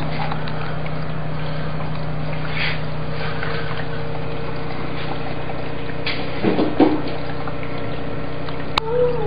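PC liquid-cooling pump running with a steady hum while water pours down a waterfall-style reservoir. Near the end there is a sharp click, then a short falling vocal sound.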